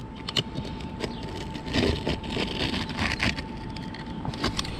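Utility knife blade scraping and cutting through gritty asphalt roof shingles along a curve, in irregular rasping strokes with many small crackling ticks.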